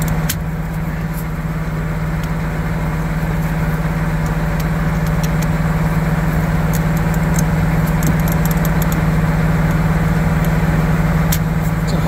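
A combine's diesel engine idling with a steady drone, while a steel pry bar levering a boulder out from between its dual tires makes light clicks and scrapes, more of them in the second half.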